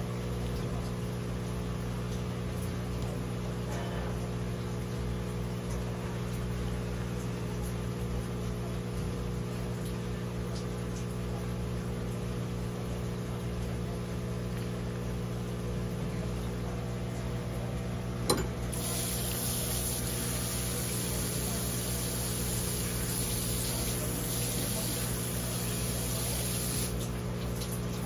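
Steady low machine hum. About two-thirds of the way in, after a sharp click, a hose nozzle pushed into a flounder's body hisses for several seconds and then stops: pressurised water flushing the blood out of the fish.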